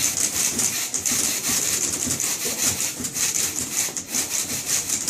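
Manual typewriters played as percussion by an ensemble: a dense, steady rhythm of many quick mechanical strokes a second.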